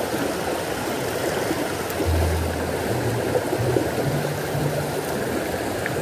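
A small mountain stream running over rocks as a steady rush of water, with the low held bass notes of background music underneath.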